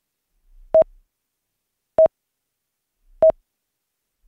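Countdown timer beeping: three short beeps on one steady pitch, about one every second and a quarter, with silence between.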